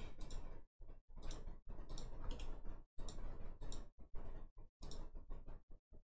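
Computer mouse clicking: a string of short, sharp clicks at an uneven pace, about one or two a second.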